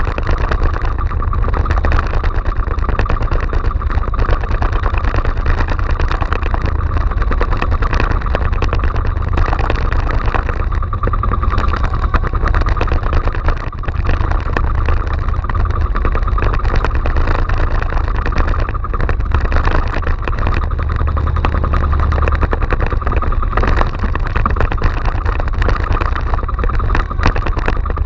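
Small outrigger fishing boat's engine running steadily under way, a continuous low drone.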